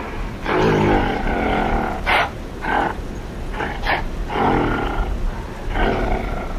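A gorilla calling: a series of about six short, pitched calls, each a second or less long.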